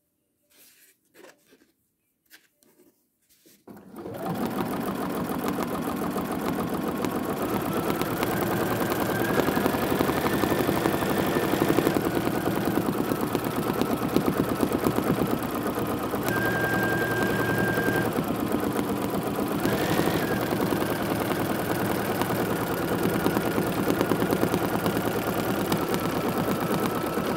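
Bernina sewing machine stitching through a layered quilt: a rapid, even needle clatter over a steady motor whine. It starts about four seconds in, after a few soft clicks, and runs without a break until it stops right at the end.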